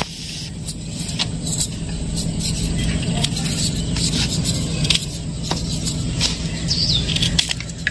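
A steady low engine-like rumble, with a few faint sharp clicks over it.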